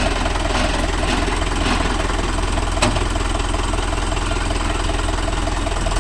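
Diesel engine of a tractor or backhoe idling steadily close by, with one sharp click a little under three seconds in.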